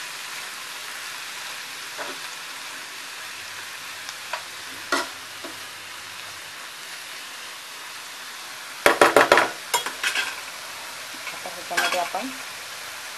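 Fenugreek greens sizzling as they are stir-fried over a high flame, a steel spatula scraping and knocking against the pan. The sizzle runs steadily, with a few single knocks and a quick run of sharp knocks about nine seconds in, then more near the end.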